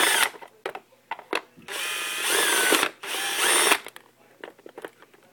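Power drill/driver backing out a screw, run in short bursts, its motor whine rising and falling in pitch.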